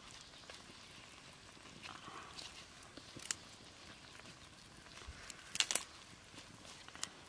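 Faint outdoor background with a few sharp, sparse clicks and taps, a quick cluster of them a little past halfway and another single click near the end.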